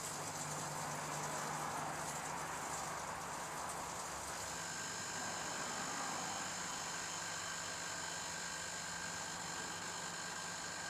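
Microwave oven running: a steady electrical hum with a fan whir, its high-pitched part shifting about four seconds in.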